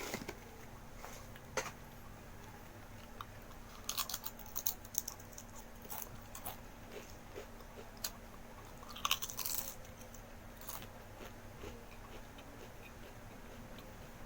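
Biting into and chewing crunchy food, with clusters of crisp crunches about four seconds in and again around nine seconds, and scattered single crunches between. A faint steady hum runs underneath.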